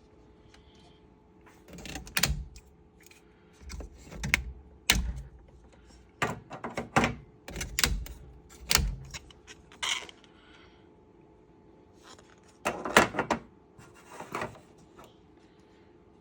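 Irregular sharp clicks and knocks of hard plastic parts, in several clusters, as freshly 3D-printed latches are handled.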